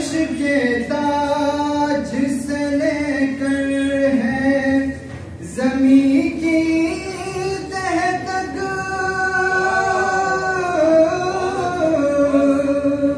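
A boy's solo voice singing an Urdu manqabat, a devotional poem, in a long held melodic line. Two sustained phrases with a short breath between them about five seconds in; the pitch climbs in the second phrase, then settles back down.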